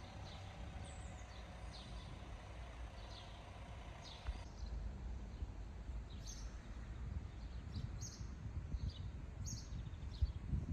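Small birds chirping in short, falling calls every second or so over a steady low rumble, with the chirps coming more often in the second half.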